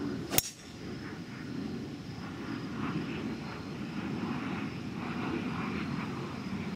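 A golf club strikes a golf ball once, a single sharp crack about half a second in. A steady low rumble carries on afterwards.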